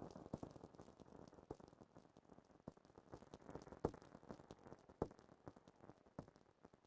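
Near silence: the last of the music dies away in the first couple of seconds, leaving faint, scattered clicks.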